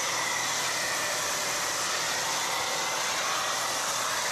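Pressure washer spraying foam through a foam cannon: a steady, unbroken hiss of the foam jet, with a faint low hum beneath it.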